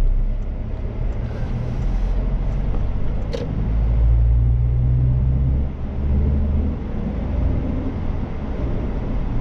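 Car driving, heard from inside the cabin: a steady low engine hum with road noise. There is one short click about three and a half seconds in.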